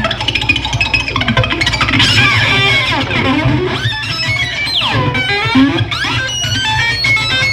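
Live electric guitar played through effects on a white Les Paul-style guitar, with swooping pitch glides and slides between notes.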